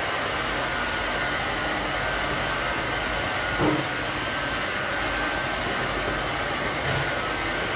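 Steady rushing of air from a running electric blower, with a faint steady whine. A brief knock comes about three and a half seconds in, and a short click near the end.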